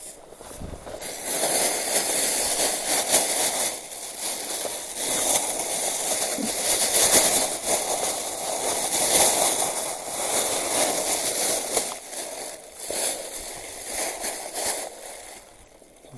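Loud, irregular rustling and crackling close to the microphone, swelling and fading with no steady rhythm, easing off near the end.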